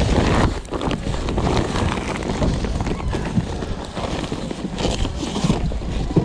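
Wind rumbling on the microphone, with scattered knocks and rustles of handling.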